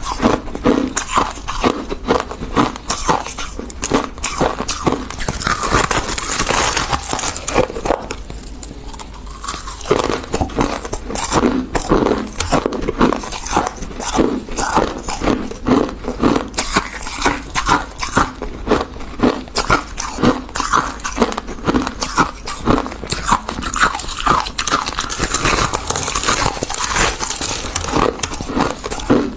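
Refrozen freezer frost being bitten and chewed: a steady run of crisp crunches, two or three a second, with a short lull about eight seconds in.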